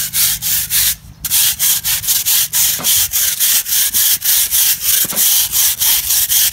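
A crack broom scrubbing gritty asphalt at the foot of a concrete curb in quick back-and-forth strokes, about four scratchy strokes a second, loosening stuck-on dirt. There is a brief break in the strokes about a second in.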